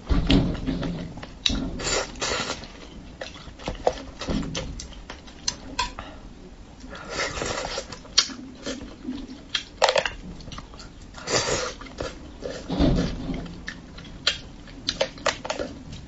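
Close-up eating sounds of braised fish: wet chewing, lip smacks and slurps, with many irregular sharp clicks and a couple of longer slurping stretches.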